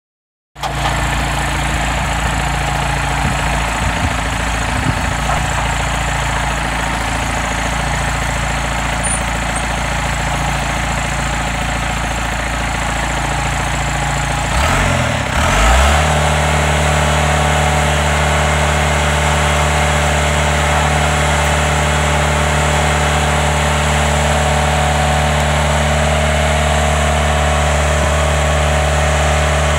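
Engine of an Arrow 1350T post-driver machine running steadily, then brought up to a higher steady speed about fifteen seconds in, with a brief rising whine as it speeds up.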